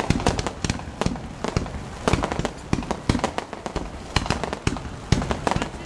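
Aerial firework shells bursting in quick succession: an irregular run of sharp bangs and crackles, several a second.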